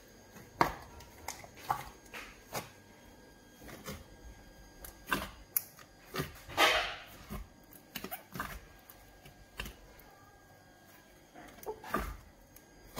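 Fingers poking and squishing thick slime in a glass bowl: irregular wet squelches and pops, with one longer squelch about six and a half seconds in.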